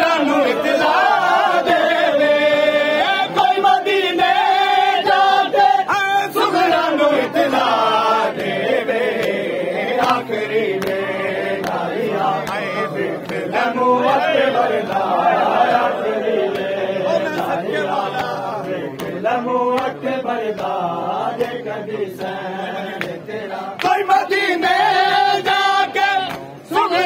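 A crowd of men chanting a noha in unison, a lead reciter's voice among the group, with the sharp slaps of chest-beating (matam) among the chanting.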